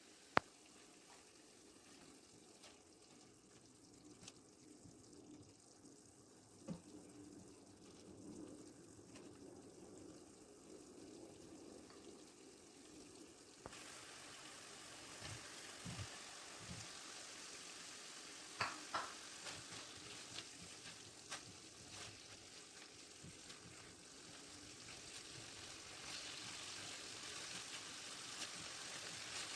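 Quiet kitchen cooking sounds: a soft hiss comes in suddenly about halfway through, with a few scattered clicks and knocks of utensils.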